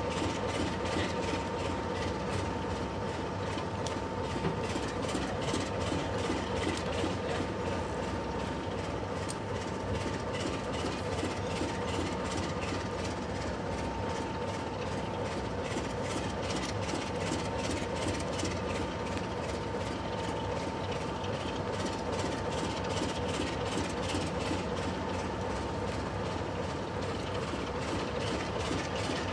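Heritage diesel locomotive idling at the head of the train, a steady engine drone with a faint held whine over it.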